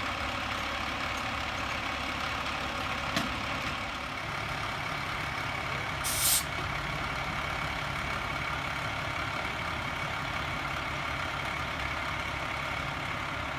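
Fire engine's diesel engine idling steadily, with a sharp click about three seconds in and a short hiss of air about six seconds in.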